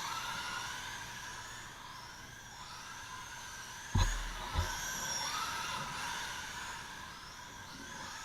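Several radio-controlled race cars running laps, their motors whining and rising and falling in pitch as they speed up and slow down. There are two short thumps about four seconds in.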